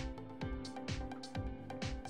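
Background music with a steady beat, about two thumps a second, over sustained tones.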